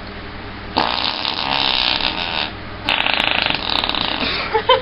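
Two long imitation fart noises made by a person, each a fluttering buzz of about a second and a half with a short break between them.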